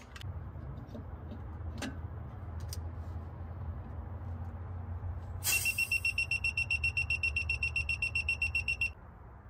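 Handheld gas leak detector pen sounding its alarm: a fast run of high-pitched beeps, several a second, starting about five and a half seconds in and stopping shortly before the end. It signals propane detected at the tank's valve connection, a gas leak at that point. Before it there is only a low rumble and a couple of faint clicks.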